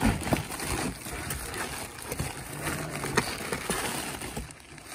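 Zip-lock plastic bags of small clock parts crinkling and rustling as a hand rummages through them in a cardboard box, with scattered light clicks of the parts shifting.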